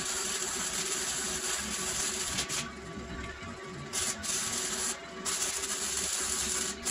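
Electric arc welding on a steel door frame: a steady hiss in runs of one to two seconds, stopping briefly twice, from about two and a half to four seconds in and again around five seconds.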